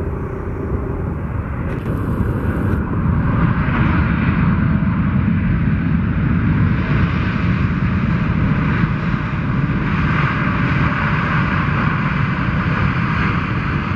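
Boeing 777 airliner's twin jet engines running loud as it rolls past on the runway. The roar builds over the first few seconds, holds steady, then eases near the end.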